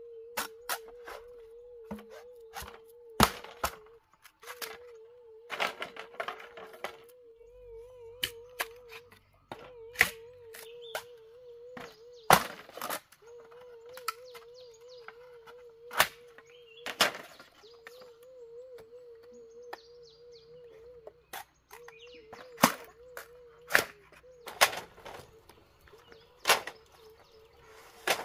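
Machete blows chopping and splitting green bamboo: sharp, irregular knocks, one every second or two, with a steady wavering tone behind them.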